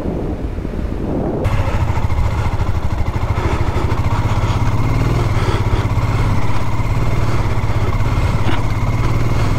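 Royal Enfield Himalayan's single-cylinder engine running as the bike is ridden on sand. About a second and a half in, the engine note becomes louder and steady.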